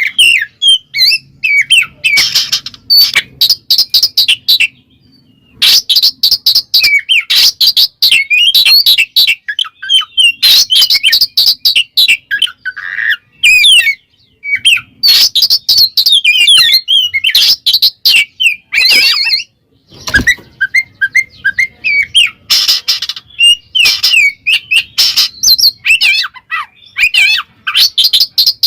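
An Oriental magpie-robin (kacer) sings loudly, in fast, varied runs of high whistles and chirps broken by a few short pauses. This is its full 'ngeplong' song, a call that challenges rival males.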